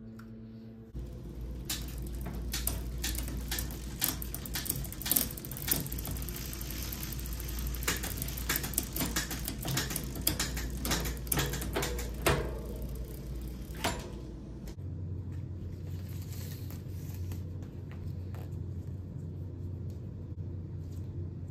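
Bicycle drivetrain with a Microshift Advent 1x9 rear derailleur, cranked by hand on a work stand: the chain runs over the spinning cassette with many irregular clicks. It stops about 14 seconds in, leaving a quieter stretch with a low steady hum.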